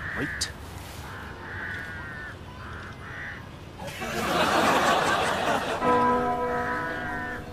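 Crows cawing repeatedly, several short harsh calls in a row. About four seconds in, a louder noisy burst lasting about two seconds, followed by a held chord of steady notes.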